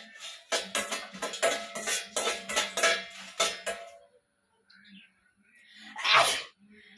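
A metal spoon clattering and scraping in a metal frying pan as dried red chillies are stirred, a quick run of clanks with the pan ringing, stopping about four seconds in. About six seconds in comes one loud sneeze, set off by the chilli fumes.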